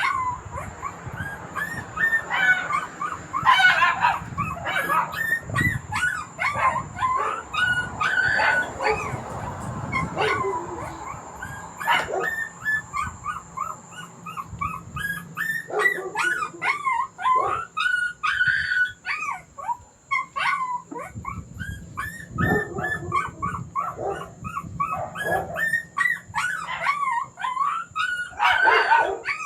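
A dog whining and yelping: a long run of short, high-pitched cries that glide up and down, with a few longer howls, thinning out briefly about two-thirds of the way through.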